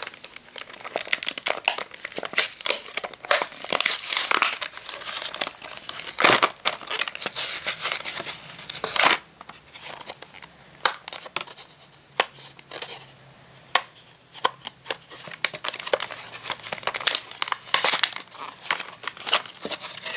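Plastic blister packaging crinkling and a cardboard backing card tearing as a toy pack is pulled open by hand, in irregular bursts of crackles, thinner through the middle and picking up again near the end.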